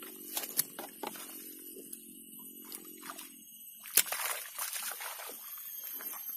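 Hooked tilapia thrashing at the surface of shallow swamp water as it is landed, with a sharp splash about four seconds in followed by continued sloshing and splashing.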